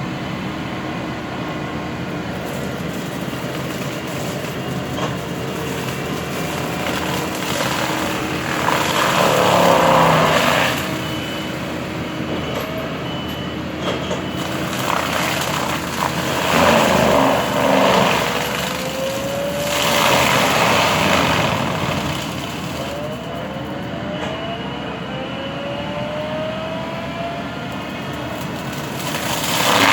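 Bobcat skid steer with a forestry mulcher head running steadily, with several louder stretches of grinding as the drum chews into wood, the last near the end. Rising whines mark the engine or hydraulics picking up speed in the second half.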